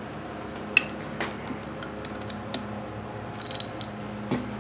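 Socket ratchet wrench clicking on a bolt inside a Briggs & Stratton single-cylinder engine's opened crankcase, with a few light metal taps: a quick run of clicks about three-quarters of the way in and a knock near the end.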